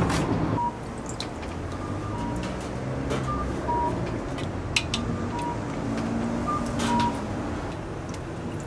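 Light clicks and short metallic rings of metal tongs and a ladle knocking against a stainless-steel oden pot, over a steady low rumble. A louder rumble at the start cuts off suddenly just after it begins.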